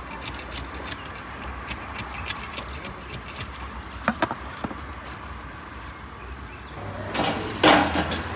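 Light clicks and taps as baked samsas are pried off the clay tandoor wall with a metal scraper and caught in a wire basket. Near the end comes a loud rattling scrape as the wire basket tips the crisp samsas out onto a steel tray.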